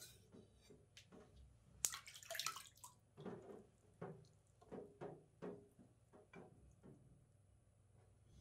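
Water dripping and splashing around a whetstone sink. There is a sharp click just before two seconds in, a short splash right after it, then a string of soft drips about half a second apart.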